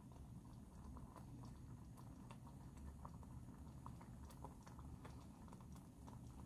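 Faint, scattered small pops and ticks from curry sauce simmering in a metal pot on a gas canister camping stove, over a low steady rumble.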